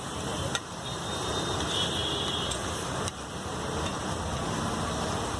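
Eggs and masala sizzling on a hot flat griddle while a metal spatula stirs and scrapes them, with two sharp clacks of the spatula on the griddle, about half a second in and about three seconds in.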